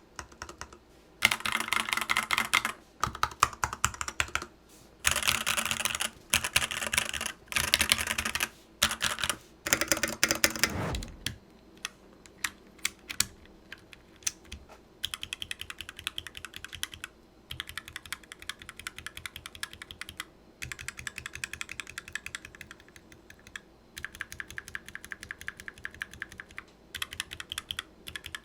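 Fast typing in bursts on a Varmilo Sea Melody mechanical keyboard with EC V2 Daisy switches, set on a bare desk with no mat. About ten seconds in, a brief falling tone marks a change to softer, evenly spaced single key presses.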